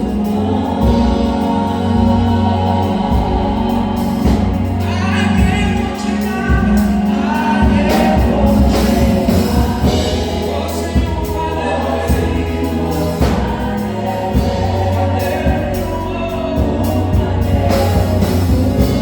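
Live gospel music: a choir singing over a band, with a steady bass line and a beat.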